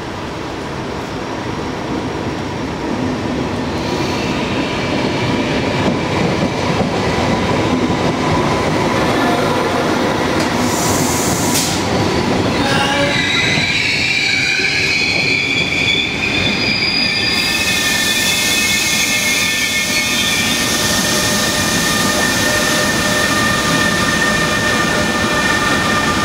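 Electric-hauled freight train approaching and passing close by: the rumble of wheels on rail grows louder over the first few seconds, and from about halfway several high squealing tones join and hold.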